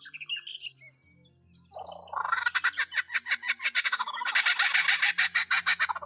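Bird calls: a few short chirps, then, about two seconds in, a loud run of rapid, harsh, repeated squawking notes that goes on for about four seconds.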